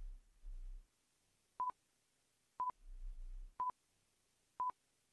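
Countdown timer beeping: four short, high beeps at one steady pitch, one a second.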